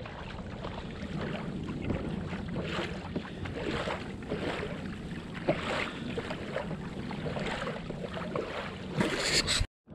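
Water splashing and lapping against the hull of a pedal-driven kayak under way, with wind on the microphone. A louder rush of water comes near the end before the sound cuts off suddenly.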